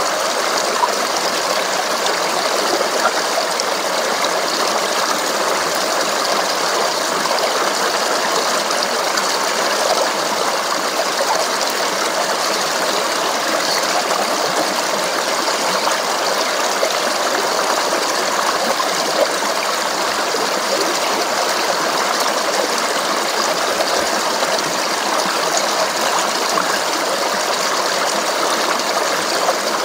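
Babbling stream: water running steadily with a continuous splashing rush, dotted with small droplet ticks.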